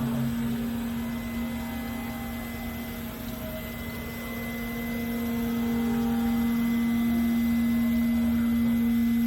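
Haas gantry CNC router running with a steady hum and a low rumble. It dips a little about three seconds in and builds back up after about five seconds.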